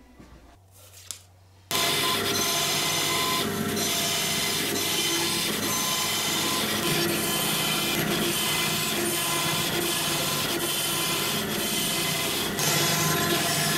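Band saw running and cutting a series of short slots into a wooden block. The sound starts suddenly about two seconds in and gets a little louder near the end.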